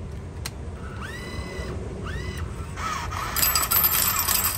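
Coin-op machine taking a five-dollar bill: the bill acceptor's motor whirs twice with a rising whine as it draws the bill in. Then, about three seconds in, a loud clatter of coins drops into the metal tray.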